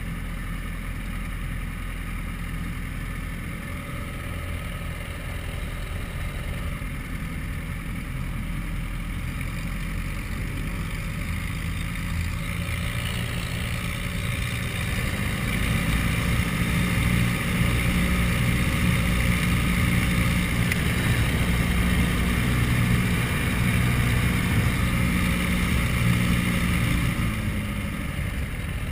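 de Havilland Chipmunk's piston engine and propeller running steadily, heard from the cockpit. The engine runs up to higher power about halfway through and is eased back just before the end.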